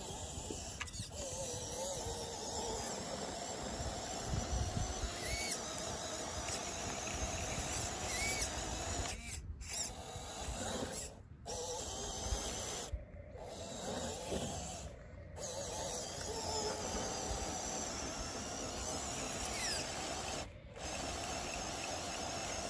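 1:12 scale RC UAZ crawler driving through loose sand: a steady electric motor and gear whir, with the tyres scraping and churning sand. The sound cuts out briefly several times.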